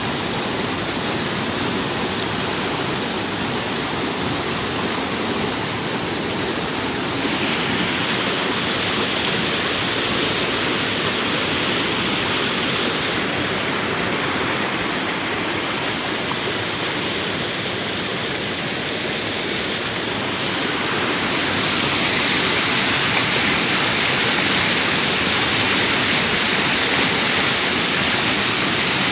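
River water rushing over its bed, a steady full rush of running water. Its tone shifts a couple of times and it grows slightly louder in the latter part.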